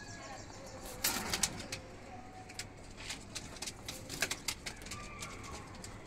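Domestic pigeons cooing, with a loud burst of wing flapping about a second in and scattered flaps and scuffles on the perch after it.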